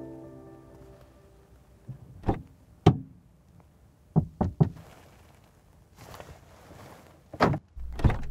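Knocking on a car's side window from outside: a few separate sharp raps, then three quick knocks about four seconds in, followed by two heavier thuds near the end.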